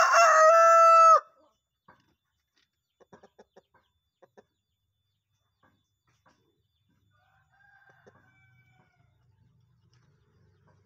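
Rooster crowing: the end of a long crow, held on one steady pitch until it cuts off about a second in, in the drawn-out style the owner likens to a contest rooster's crow. After it, only a few faint taps.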